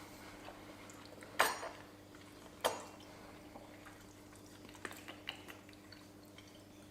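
Forks clinking and scraping against a frozen-meal dish as spaghetti is picked up. There are two sharp clinks about a second and a half and two and a half seconds in, then a few lighter taps later on.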